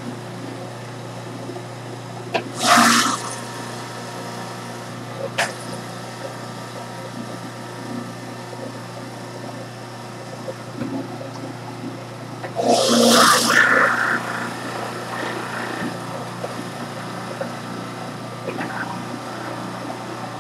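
Electric juicer running with a steady motor hum as pieces of fennel and cucumber are fed through it, with two brief louder bursts, about three seconds in and again about thirteen seconds in.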